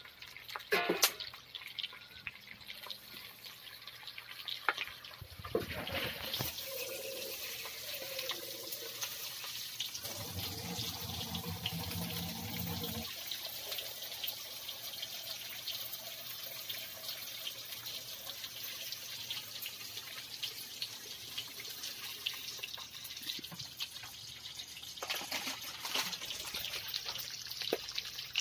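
Chicken frying in oil in a wok over a wood fire: a steady sizzle with many fine crackles. A few sharp knocks near the start, and a low hum for about three seconds some ten seconds in.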